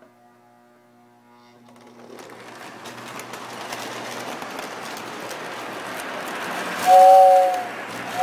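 Toy electric train set running on its track, the motor and wheels getting louder as it gets going, with light clicks over the rail joints. Near the end the locomotive gives one loud two-note whistle, under a second long.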